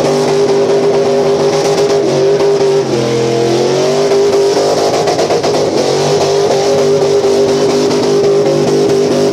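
1978 Chevy K10 pickup's engine held at high revs during a burnout. The revs drop briefly about three seconds in and climb back up.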